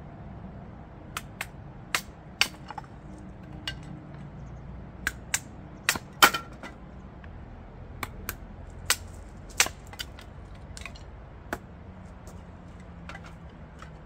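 Hatchet splitting firewood on a log chopping block: a series of sharp chopping knocks at irregular spacing, the loudest about six seconds in.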